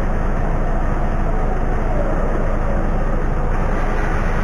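Steady, even running noise of the Iveco Daily truck from beneath it, with no burst or hiss of air from the brake chamber.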